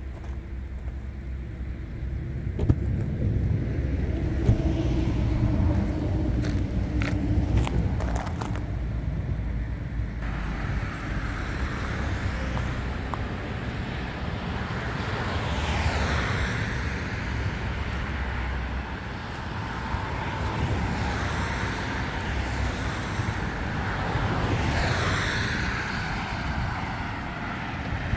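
2016 Audi A6's 2.0 TDI four-cylinder diesel engine running at idle, a steady low rumble, with a few clicks about seven to eight seconds in.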